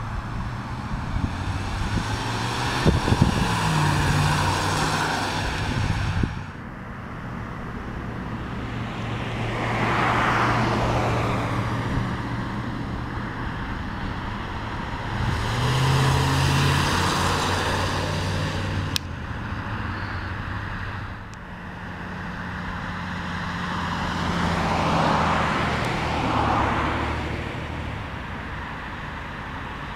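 1990 Chevrolet Caprice Classic's 5.0-litre V8 and tyres heard from the roadside as the car drives past several times. Each pass has a low engine note and road noise that swell as it goes by and then fade.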